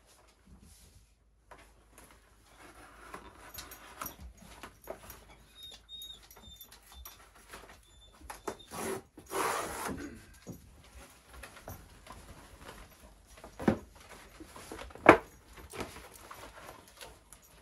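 Paper and plastic packaging rustling and crinkling as mail packages and a padded mailer are opened by hand, with a louder stretch about halfway through and two sharp knocks near the end, the second the loudest.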